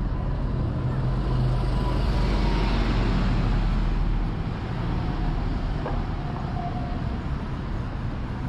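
City street traffic: a motor vehicle's engine running close by with a low hum, loudest for the first four seconds and then easing off a little, over general street noise.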